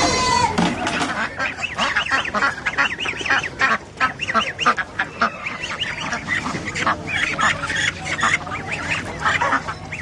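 A flock of domestic ducks quacking, with many short calls overlapping one another without a break.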